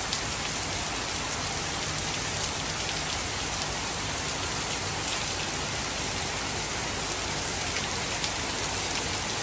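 Heavy rain falling steadily on a garden, paving and roofs: a dense, even hiss of pouring water.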